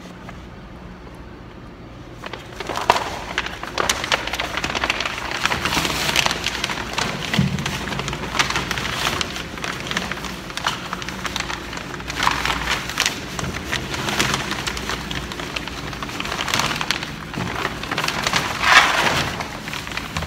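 Clear plastic sheeting crinkling and rustling as it is worked over a metal silo chute, starting about two seconds in, over a low steady hum.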